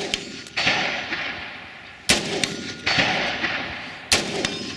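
Four rifle shots about a second apart, each followed by a long echo that fades away.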